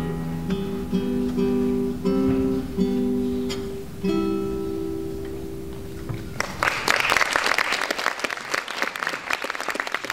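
Classical guitar playing the closing notes of a piece, ending on a chord that rings from about four seconds in. About six and a half seconds in, audience applause breaks out and continues.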